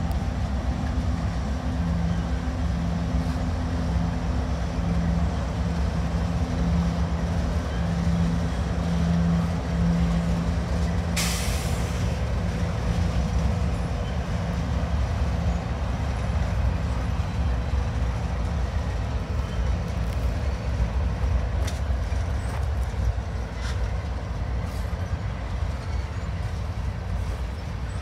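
Diesel-hauled freight train passing: a steady low rumble of locomotive engine and wheels on rail, with a pulsing engine hum that fades out after about sixteen seconds. Just after eleven seconds comes a sharp hiss lasting about a second.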